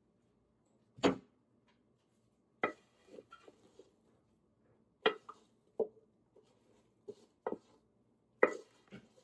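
Wooden spoon knocking and scraping against a pot as sticky, foamed honeycomb toffee is worked out of it: a string of sharp, irregular knocks, about eight of them, some with small clicks between.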